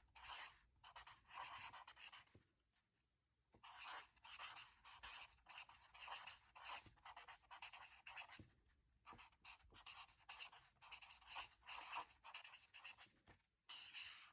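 Faint scratching strokes in short irregular runs, with brief pauses between them.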